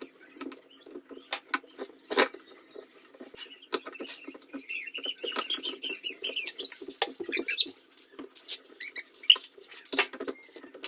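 Hand work on a submersible motor's copper winding: irregular small clicks, taps and scratchy rustling, busier with some squeaky scraping in the middle.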